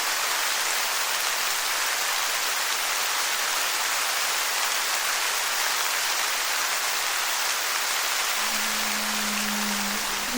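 Steady rain, an even hiss with no rise or fall. Near the end a low held tone fades in underneath.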